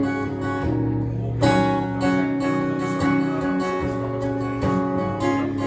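Acoustic guitar strumming the song's opening chords as an instrumental intro, a steady rhythm of strokes.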